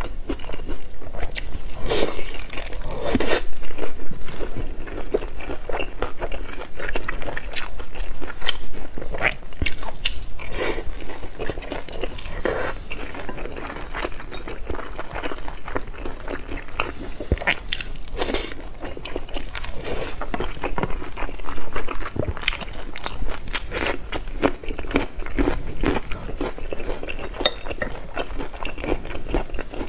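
Close-miked eating of pan-fried dumplings: repeated bites and chewing, heard as many short, irregular crackly clicks.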